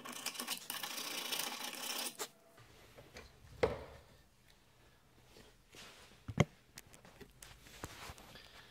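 Rapid back-and-forth scraping of a hand tool cleaning rust out of the pad slots of a steel brake caliper carrier held in a vise, stopping about two seconds in. Then two sharp metal knocks a few seconds apart, the loudest sounds here, as the bracket is handled in the vise.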